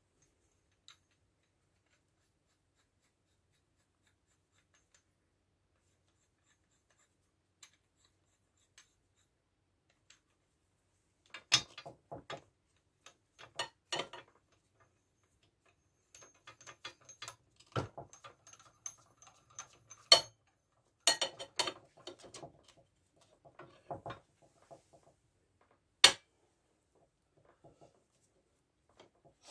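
Scattered handling noises while safety rope is tied around a compressed coil spring: the rope rubs and rustles against the coils, and metal clinks and knocks now and then. Two sharp clinks, about 20 and 26 seconds in, are the loudest. The first ten seconds or so are almost silent.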